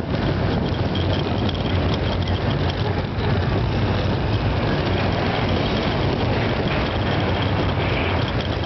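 Steel roller coaster car running at speed along its track, a steady loud rumble of wheels on rails with a low hum under it.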